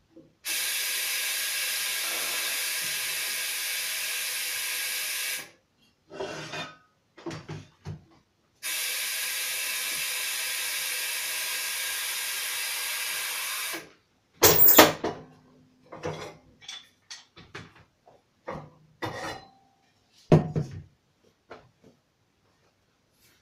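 Compressed air hissing steadily through a pneumatic shoe sole press's diaphragm air unit, twice for about five seconds each, with a few light knocks from the switch between them. After that come sharp knocks and clunks of the press's metal prop and the boot being handled, the loudest of them about halfway through.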